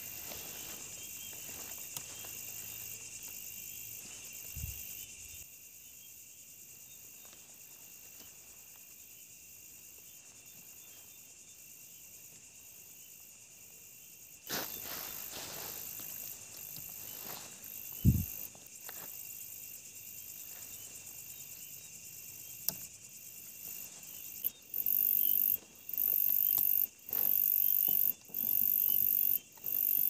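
Evening chorus of crickets and other insects: a steady high chirring throughout. From about three-quarters of the way in, a louder, very high insect call pulses on and off in bursts about a second long. Two dull low thumps come early on and about midway.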